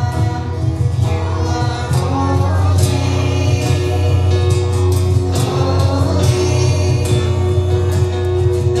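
Background music: a choir-style song with a strong steady bass.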